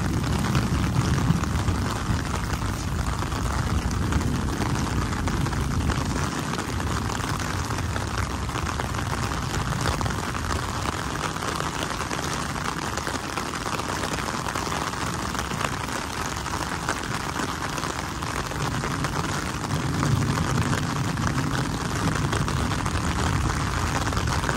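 Steady heavy rain falling on wet pavement and waterlogged ground, with a low rumble that swells near the start and again near the end.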